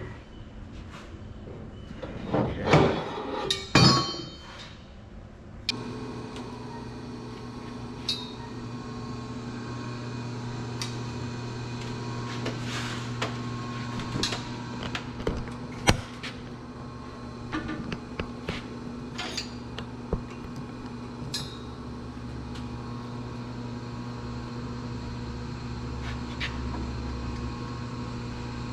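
A few loud hammer blows on metal about two to four seconds in. After that, a steady machine hum begins, with scattered light metallic taps and clinks over it.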